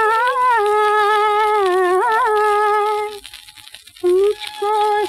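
Music from a 78 rpm shellac record of a 1950s Hindi film song: a long held melodic line breaks off about three seconds in, then comes back in short notes about a second later.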